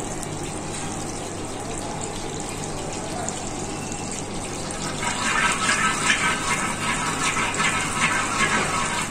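Ghee heating in a hammered copper pan over a gas burner: a steady rushing hiss, joined about five seconds in by a louder crackle as the ghee starts to sizzle.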